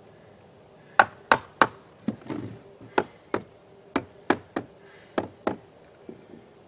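Hammer nailing a rough-cut oak trim board to a window frame: about a dozen sharp strikes, starting about a second in and coming in quick runs of two or three.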